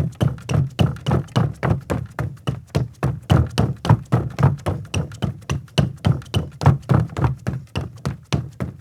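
Footsteps of a woman in sneakers on a deck: quick, even steps, about three to four a second, each a dull thud.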